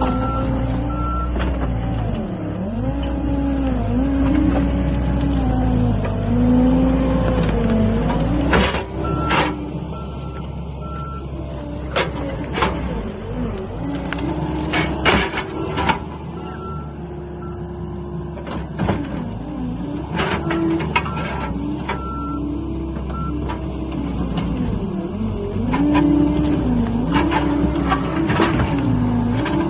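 John Deere 317G skid steer's diesel engine working under load, its pitch rising and falling as the machine moves. In between come runs of short, same-pitch backup alarm beeps and scattered clanks.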